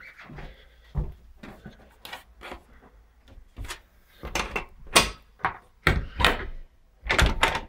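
A front door being unlocked and opened: faint clicks at first, then a run of sharp, irregular clacks and clunks of the lock, latch and handle over the last three seconds.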